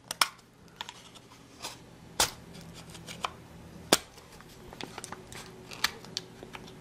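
Hobby scalpel blade scraping and nicking at a hard plastic kit part, making irregular small clicks and scrapes with a couple of louder snaps about two and four seconds in, as leftover sprue stubs are trimmed off the moulded styrene.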